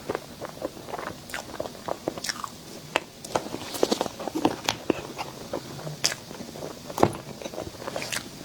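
Close-miked eating of a dessert: biting and chewing, with many sharp, irregular crunchy clicks.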